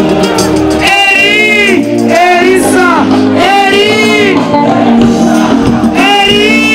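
Ugandan pop song played live through a loud PA: sung vocal phrases about a second long, bending in pitch, over a steady bass and band.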